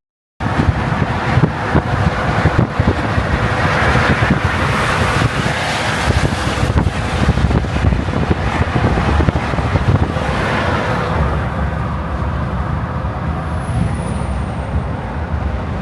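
Road noise of a vehicle on the move: a loud, steady mix of engine, tyre and wind noise, a little louder in the first ten seconds. A faint high whistle dips in pitch near the end.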